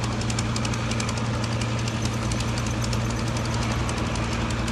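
An engine idling steadily, with a low hum and a rapid, regular knocking clatter.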